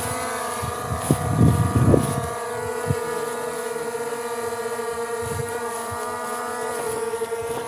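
Skydio 2 drone's propellers whining steadily in flight, a held chord of steady tones. Low rumbling buffets hit the microphone during the first two seconds.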